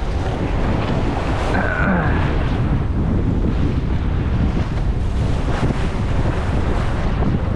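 Wind buffeting the microphone over the rush of water along a sailboat's hull as it sails in strong wind; a steady, loud noise with no pauses.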